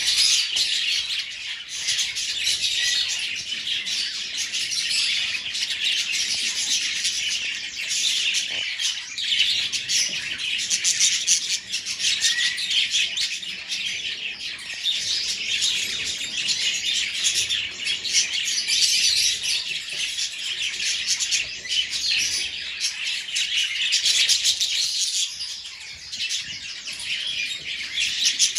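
Budgerigars chattering and warbling, a steady, dense stream of high chirps that never pauses.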